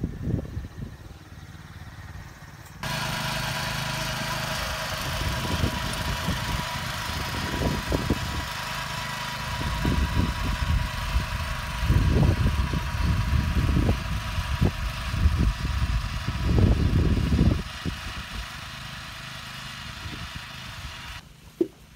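Small engine of a walk-behind cultivator running steadily as it works the soil between crop rows. It starts abruptly a few seconds in and cuts off near the end. Irregular low rumbles are loudest in the second half.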